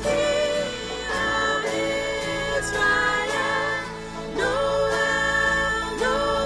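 Christmas worship music with accompaniment and a sustained melody line; the held notes scoop up into pitch.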